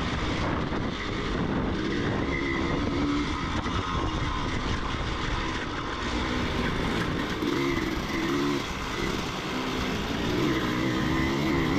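Motocross bike engine, heard from on board the rider's Husqvarna, revving up and down as the throttle is worked through turns and straights, its pitch rising and falling again and again.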